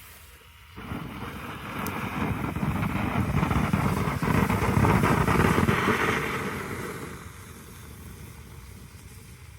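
Firework fountain (Mad Ox Molten Metal) burning with a steady rushing hiss: it starts about a second in, swells to its loudest midway, then dies down to a weaker hiss after about seven seconds.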